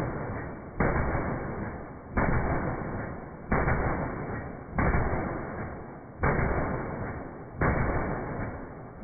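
12-gauge shotgun fitted with a V6 muzzle brake fired six times at an even pace, about one shot every second and a half, each report dying away before the next.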